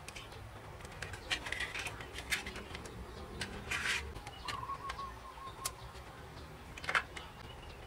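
Scattered light clicks, taps and a brief rustle of hands handling a servo wire and an electronic speed controller against a wooden boat hull, with a short faint run of chirps about halfway through.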